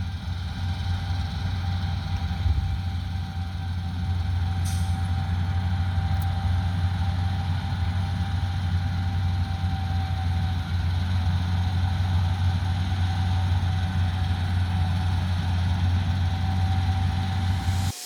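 Claas Lexion 8900 combine harvester running: a steady low engine drone with a faint high whine that fades out about ten seconds in.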